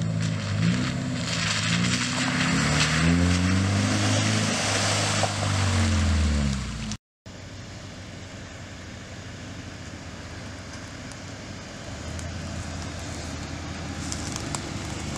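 Subaru flat-four engine pulling a car along a dirt forest road, its pitch rising and falling. After an abrupt cut about seven seconds in, a quieter, steadier engine and road drone.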